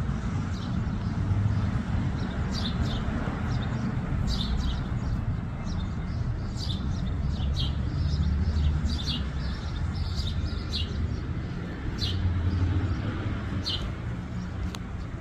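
Small birds chirping: short, high chirps come irregularly, several at a time, over a steady low rumble.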